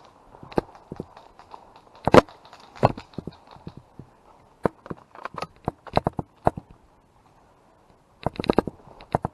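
Footsteps crunching through dry leaves and twigs: irregular snaps and crackles, with a quick cluster of them near the end.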